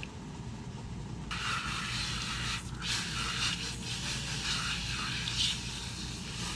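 Garden hose spraying water over a soapy dog, rinsing off the lather. The spray hisses on suddenly about a second in and breaks off briefly once midway.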